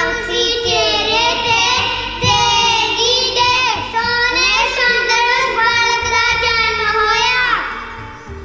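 A young boy singing a Sikh devotional hymn through a microphone: a solo melodic line of long held notes with wavering ornaments, its last phrase gliding down and fading near the end.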